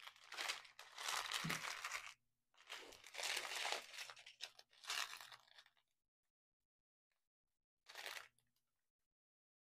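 Small clear plastic bags of diamond painting drills crinkling and crunching as they are handled and sorted through by hand, in three longer bursts and a short one near the end, with quiet pauses between.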